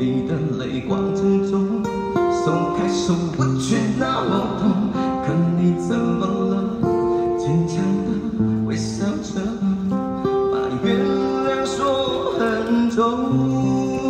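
A man singing a Mandarin pop ballad over his own strummed acoustic guitar.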